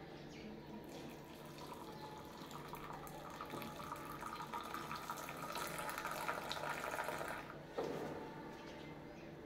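Hot milk tea pouring from a pan into a glass mug: a stream of liquid splashing into the mug. It is loudest in the middle seconds and stops about eight seconds in.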